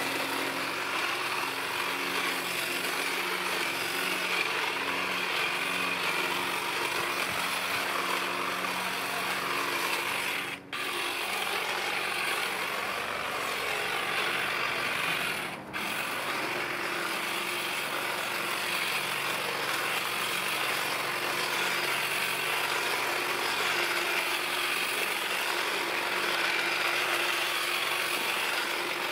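Black+Decker GTC18504PC 18V cordless hedge trimmer running steadily, its motor driving the reciprocating blades as they cut through a leafy hedge. The motor stops for a split second twice, about ten and fifteen seconds in, then runs on.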